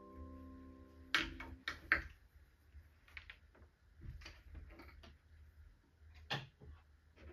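A held music chord ends about a second in, followed by a series of scattered light clicks and knocks, the loudest near the end.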